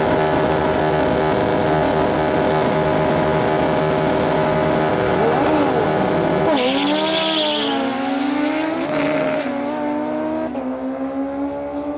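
Drag motorcycle engine held at high revs with the rear tyre spinning in a burnout, steady for about six and a half seconds. The revs then drop and waver up and down, and the engine settles to steadier, lower running.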